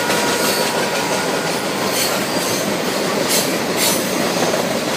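Freight train of tank cars rolling past: a steady rumble and clatter of steel wheels on rail, with a few brief high-pitched hisses about two and three and a half seconds in.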